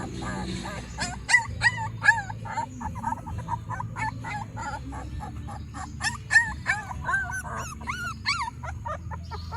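Dogs whining and yipping: a quick string of short, high whines, each rising and falling in pitch.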